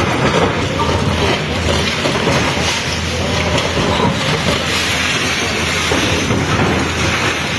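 Excavator demolishing a concrete building: its diesel engine runs steadily under a dense, continuous clatter of breaking masonry and debris.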